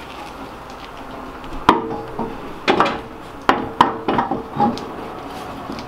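Sharp metallic clinks and knocks, about seven in three seconds, some with a brief ring, as a Work VS-KF wheel is fitted onto the car's front hub and handled into place.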